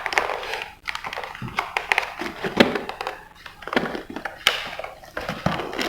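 Packaging being handled and torn open by hand: irregular rustling and crinkling with small clicks and taps.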